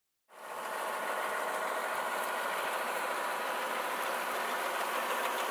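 Tractor engine running steadily, driving a potato digger that lifts and shakes the soil from the potatoes. The sound starts abruptly just after the beginning.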